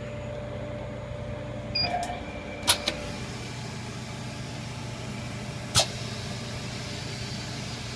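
Phone screen laminating chamber machine running a bonding cycle: a steady machine hum, a shift in its tone about two seconds in, two sharp clicks just before three seconds and another sharp click near six seconds.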